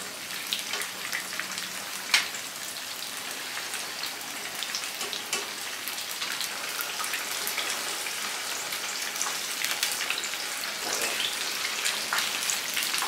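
Tapioca-battered tofu pieces deep-frying in a pan of hot oil, a steady sizzle full of small crackles, with a sharp click about two seconds in.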